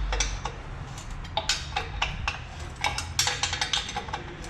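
Irregular light metallic clinks and taps, several a second, as metal pieces are handled and knocked together.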